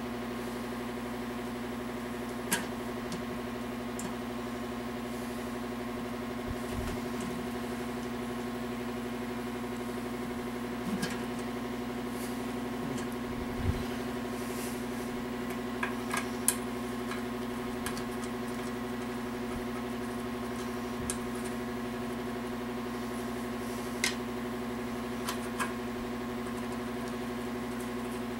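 A steady machine hum holding one pitch with several overtones, broken now and then by short, sharp clinks and taps of small metal parts being handled on an engine block: about ten light strikes, spread out, with the clearest ones past the middle and near the end.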